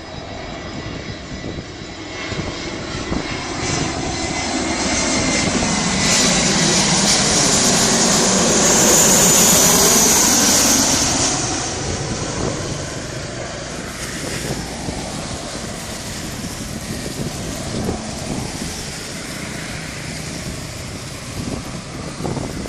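VietJet Air Airbus A320-family jet airliner passing low overhead on approach to land. The engine noise builds to a peak about nine to ten seconds in, with a high whine and a falling tone, then drops away into a lingering rumble.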